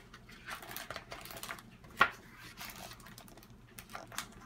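Pages of a hardcover picture book being turned and handled: a run of paper rustles and flaps, with one sharp tap about two seconds in.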